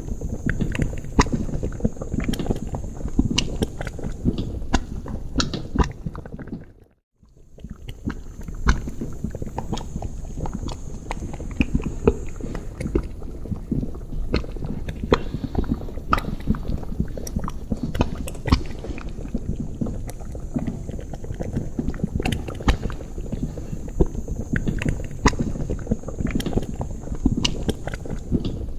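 Thick liquid bubbling in a cauldron: a dense, irregular stream of low bubble pops. About seven seconds in it fades out to silence for a moment and comes back.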